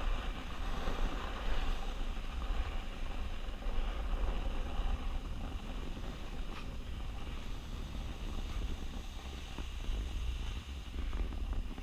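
Rushing wind buffeting the action camera's microphone while moving downhill, over the steady hiss and scrape of sliding on packed snow.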